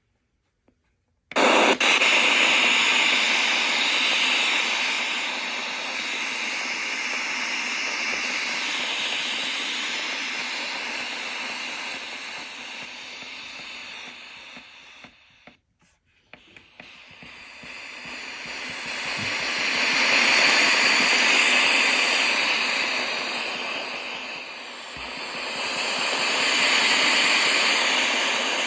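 Clock radio hissing static, starting suddenly about a second in. The hiss swells and fades, cuts out briefly about halfway, then comes back.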